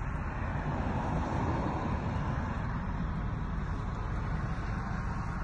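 Steady low rumble with an even hiss over it, heard inside a Dodge car's cabin.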